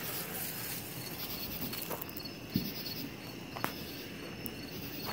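Crickets chirping at night: a faint, high chirp repeating over and over, with a few sharp clicks around the middle.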